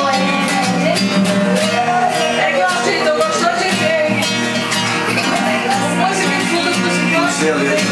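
Nylon-string classical guitar strummed in a steady, even rhythm, chords ringing between the strokes.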